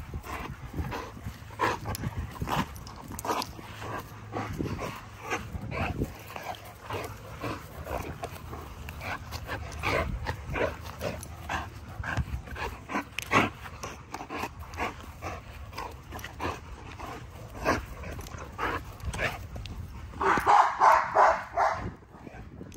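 American bully dog playing tug-of-war with a rope toy, making many short vocal sounds throughout, with a louder burst of barking near the end.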